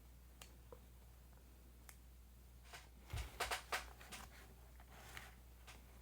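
Faint clicks from trimming and handling adhesive grip tape on a pistol frame, with a quick run of sharp snips and a low bump about three seconds in.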